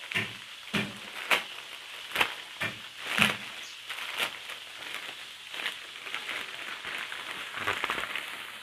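Black plastic courier mailer bag crinkling and crackling as hands pull it open. Several sharp, loud crackles in the first few seconds, then softer, busier rustling.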